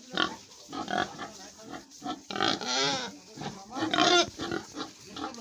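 Pigs of a local Assamese breed calling: short grunts throughout, with longer, higher calls about two and a half and four seconds in.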